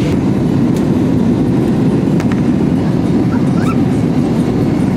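Jet airliner cabin noise in flight: a loud, steady, deep rumble of engines and rushing air heard from inside the cabin.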